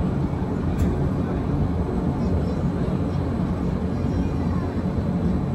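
Steady low rumble of the Gornergrat Railway's electric rack train running, its wheels and drive heard from a carriage window.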